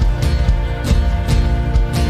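Band music with no singing: acoustic guitar and keyboard holding sustained chords over drum hits from an electronic drum kit.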